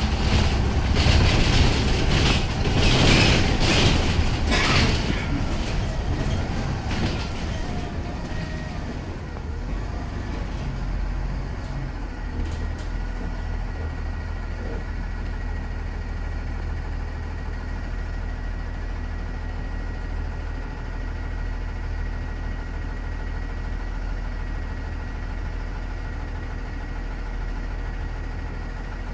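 Cabin sound of a Startrans President FE bus with a Cummins ISB 5.9 CNG engine. For the first few seconds there is loud road noise and rattling while moving; this fades as the bus slows, and about twelve seconds in it settles into the steady low hum of the engine idling at a stop.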